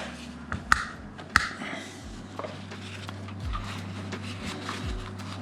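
Handling and wiping noises while excess residue is cleaned off a water-cooled RAM block, with two sharp clicks in the first second and a half and faint scattered ticks over a steady low hum.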